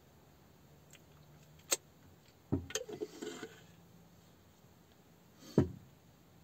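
Food jars and containers handled on a small tabletop: a sharp click, then a short run of knocks and rattles, and near the end a single knock, the loudest of them.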